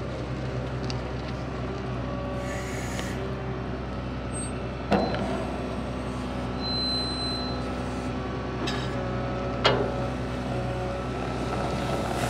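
JCB loader's diesel engine running steadily while its bale handler sets a round straw bale onto a trailer, with two sharp knocks about five seconds and nearly ten seconds in.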